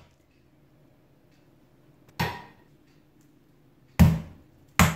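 Meat mallet pounding a chicken breast through plastic wrap on a wooden cutting board to flatten it. Three dull thuds: one about two seconds in, then two close together near the end.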